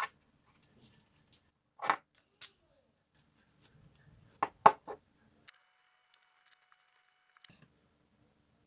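Small steel hardware clinking as it is handled: bolts, nuts and washers knocking against each other, the steel brackets and the wooden tabletop in a string of separate sharp clinks, the loudest a little before the middle.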